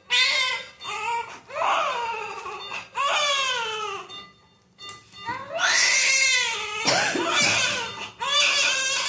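Newborn baby crying in a series of high-pitched wails, each about a second long, with a short pause a little before halfway.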